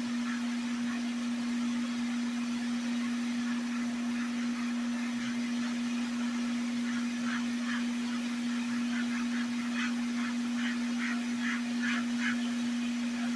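Hot-air rework heat pen blowing with a steady, loud, even-pitched hum while reflowing solder on a PS5 HDMI port, with faint crackling that grows more frequent in the second half.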